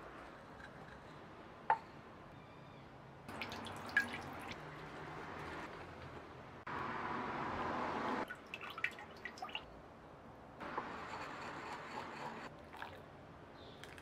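Liquid sumi ink trickling and dripping as it is strained through a sieve into a ceramic bowl. It comes in three spells, the loudest about seven to eight seconds in. A few light clicks of the vessels and pestle are heard.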